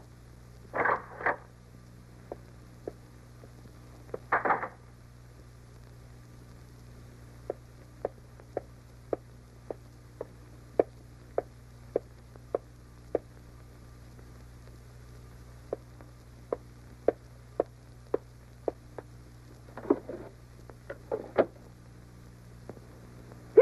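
Dubbed-cartoon foley of a woman's heeled footsteps clicking at an even walking pace on a wooden floor, about two steps a second, with a few louder knocks and scrapes of wooden furniture being handled, a drawer being pulled open near the end. A faint steady hum runs underneath.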